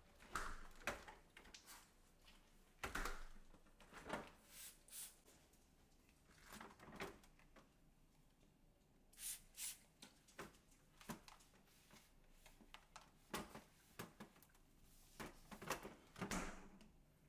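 Quiet, scattered clicks, knocks and rubbing of a refrigerator being handled while it is cleaned: its plastic freezer drawer pulled and pushed. Two short hisses come about nine seconds in.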